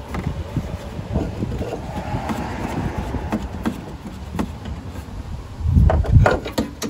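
Hand tools and metal suspension parts knocking and clattering while the small retaining nuts are worked off. There are a couple of heavy thumps about six seconds in.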